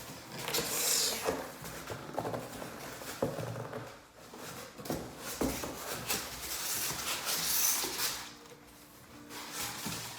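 A cardboard shipping package being opened by hand: irregular rustling, scraping and tearing with scattered knocks and clicks.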